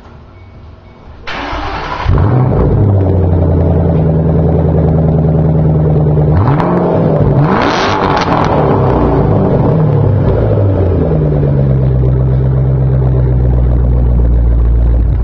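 Supercharged 5.4-litre V8 of a 2007 Ford Shelby GT500 with an SLP Loudmouth exhaust, heard at the tailpipe. The starter cranks briefly, the engine catches about two seconds in and settles into a fast, loud idle. It is revved twice around six to eight seconds in, then idles lower.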